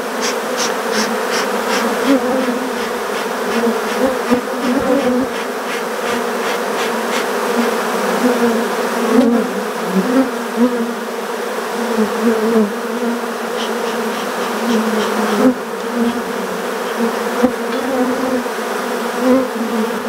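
Africanized honey bee colony buzzing steadily over the open hive, a dense hum with the buzz of single bees flying close by wavering up and down in pitch.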